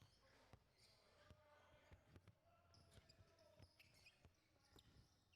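Faint basketball dribbling on a hard court floor, short bounces at an uneven pace of roughly two a second.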